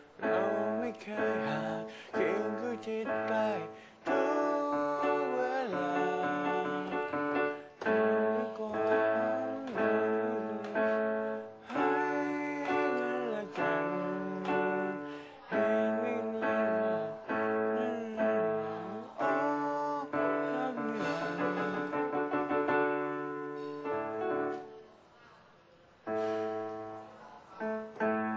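A man singing while accompanying himself on a Korg SP-170 digital piano. About 24 seconds in, the music drops off for a moment, then the piano and voice come back in.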